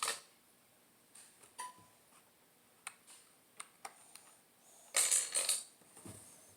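Small plastic Lego pieces being handled: scattered single clicks, with a short louder rattle of pieces about five seconds in.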